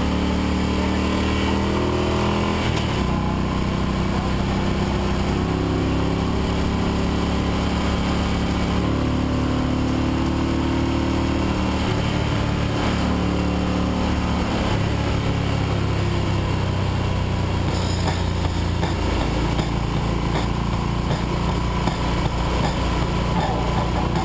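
Motorcycle engine running at road speed, heard from the rider's own bike, its pitch shifting up and down several times as the throttle changes, over a steady rush of wind and road noise.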